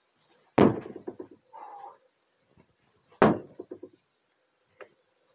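A heavy hand-swung tool striking the OSB wall panels of a chicken coop twice, about two and a half seconds apart. Each blow is a loud bang followed by a short rattle of the loosened boards, with a faint knock near the end.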